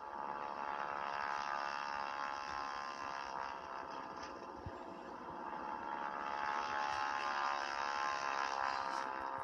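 Steady buzzing drone with many closely spaced tones from a television playing a videotape, swelling and fading twice.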